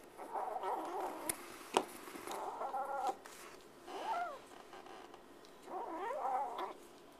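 A kitten making four harsh, wavering yowling growls while eating, guarding its food from a hand reaching into the bowl. Two sharp clicks come between the first and second call.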